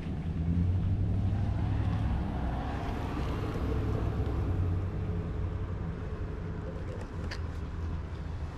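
Low, steady rumble of wind and clothing rubbing on a body-worn action camera's microphone as the wearer walks, with a faint tap near the end.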